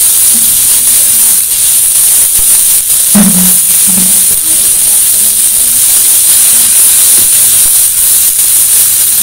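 Taro leaves frying in oil in a karahi over a wood fire, with a steady, high sizzling hiss. A faint voice is briefly heard about three seconds in.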